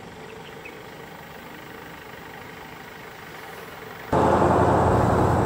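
Vehicle engines idling quietly, then about four seconds in a much louder engine sound cuts in abruptly.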